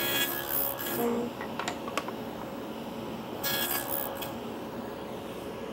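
Wooden rail tenons scraping as they are pushed into a stile's groove for a test fit. There are two short rubbing bursts, one at the start and one about three and a half seconds in, over a steady background machine hum.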